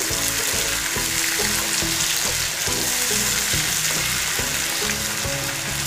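Onion, ginger-garlic and tomato puree masala sizzling steadily in oil in a nonstick frying pan as it cooks down, stirred with a wooden spatula.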